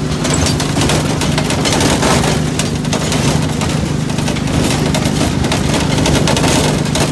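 Ride-on miniature railway train running along the track: a steady engine hum with frequent rapid clicks and rattles from the moving train.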